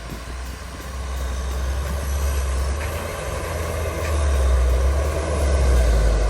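Motor vehicle driving: a deep, steady engine rumble with road noise that grows louder in steps about a second in and again about four seconds in.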